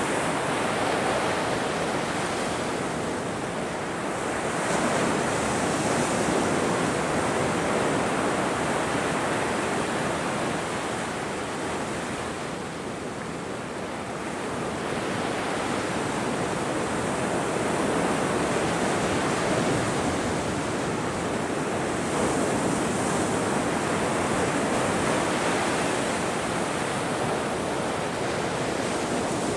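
Ocean surf: waves breaking and washing ashore in a continuous rush that slowly swells and eases every several seconds.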